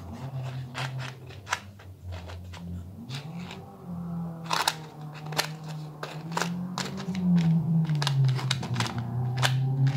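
Quiet background music with a low, wandering bass line, over scattered sharp clicks and taps of a small earring box and its earrings being handled, two of the clicks louder than the rest.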